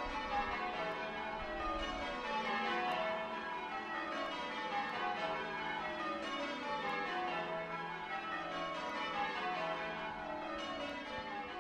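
A ring of church tower bells ringing changes, the bells struck one after another in repeating rows that run from high to low.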